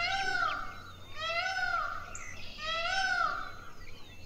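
Indian peafowl (peacock) calling: three arching, rise-and-fall cries, each under a second long, about a second and a half apart.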